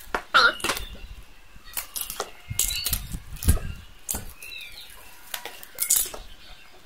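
Clear plastic shrink wrap around plastic food containers crinkling and crackling as it is handled and cut with scissors: a run of short, sharp crackles and snips.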